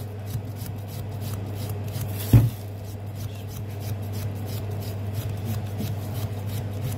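Long knife shaving a stick of cured pastırma by hand in quick, even strokes that tick steadily like a clock, over a steady low hum. One stronger thump comes about two and a half seconds in.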